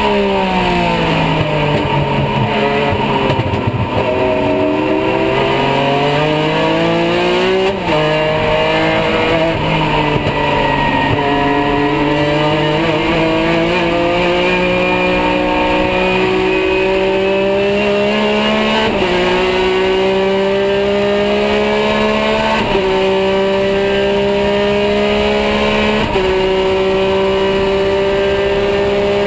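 Porsche GT3 R race car's flat-six engine heard from inside the cockpit under racing load. The pitch falls over the first few seconds as the car slows, then climbs under throttle, dropping suddenly at upshifts about 8, 19, 23 and 26 seconds in and climbing again after each.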